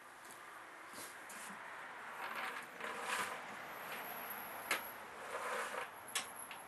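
Footsteps on a concrete floor and an empty plastic five-gallon bucket being picked up and carried, with scuffing and two sharp clicks from its wire bail handle.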